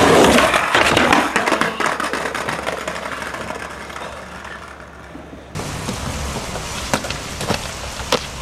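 Skateboard on concrete: a loud scraping grind along a ledge at the start that eases into rolling and fades over a few seconds. After that, wheels roll with several sharp clacks of the board near the end.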